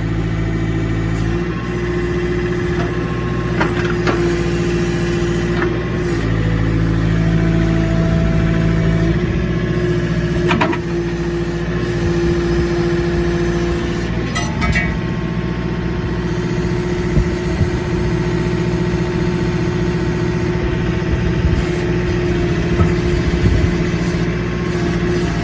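John Deere backhoe's diesel engine running steadily under hydraulic load, its note shifting several times as the machine works a tire off its rim. A few short knocks and clanks come through.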